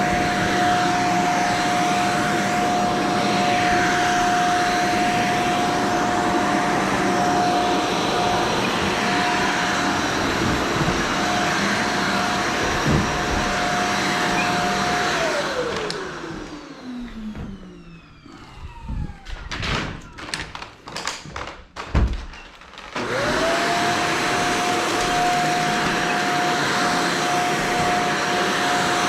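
Vacuum cleaner motor running with a steady whine, switched off about halfway through so the whine falls away, a few knocks and bumps while it is off, then switched back on and spooling up to full speed again.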